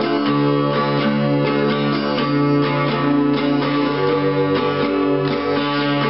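Ibanez V70 CE acoustic guitar strummed with quick repeated strokes, its low strings ringing on under the chords.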